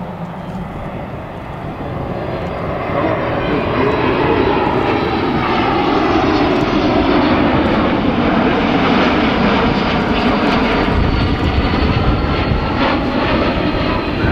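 Boeing 787 Dreamliner's twin turbofan engines passing during a low banking display pass. The jet noise grows louder over the first few seconds and then holds steady and loud, with a tone that sweeps slowly as the aircraft moves past.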